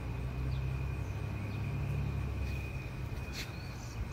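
Outdoor background sound: a steady low rumble with a constant thin high tone running through it, a few faint short chirps, and a single sharp click about three and a half seconds in.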